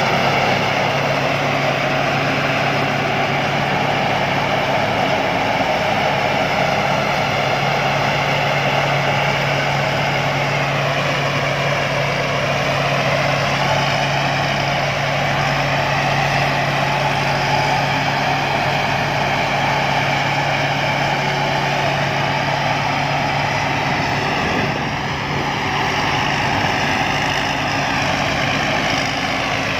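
Rice combine harvester's engine running steadily, with a whine that shifts in pitch a couple of times.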